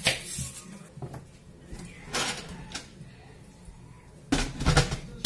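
Knife cutting an onion on a wooden board, then, about four seconds in, heavy clunks and rattles as the lid of an electric pressure cooker is twisted and lifted open; the lid clunks are the loudest sounds.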